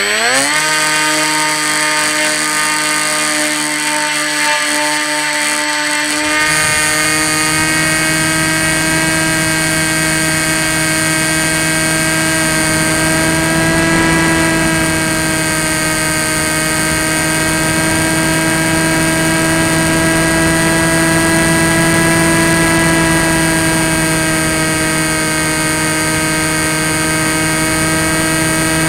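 Electric motor and propeller of a Tek Sumo foam flying wing, heard from the onboard camera: it spools up with a quickly rising whine at the start, then holds a steady whine that swells slightly in pitch now and then. A rush of wind over the airframe joins about six seconds in.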